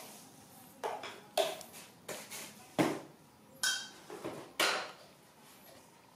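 Hard objects clattering: about six sharp knocks and clinks in the first five seconds, like dishes or pans being handled, one of them with a short ring.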